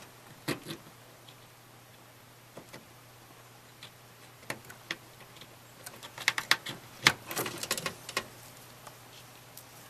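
Small plastic clicks and rattles of SATA data cables being handled and pushed into a motherboard's SATA ports, with a burst of clicks about six to eight seconds in. A faint steady hum sits underneath.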